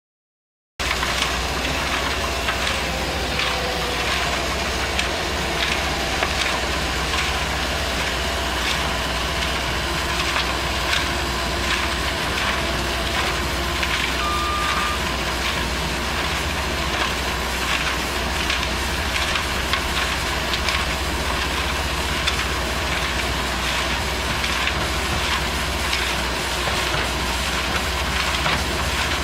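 Revolver RT508 trommel screening plant running: a steady engine drone with constant small clicks and rattles from the machine. It starts abruptly just under a second in, and a brief beep sounds about halfway through.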